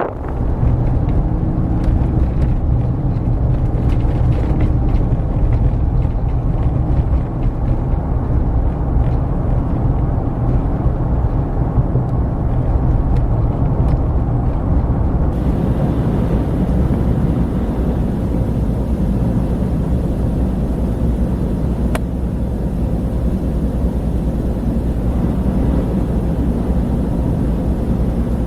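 Strong howling wind, heard as a steady, loud low rumble with no break.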